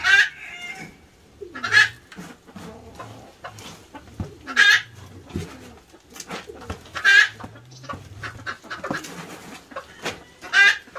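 A chicken giving a loud call about every two and a half seconds, five times. Between the calls is the rustle and scrape of shredded food being tipped from a woven bamboo tray into a metal pot.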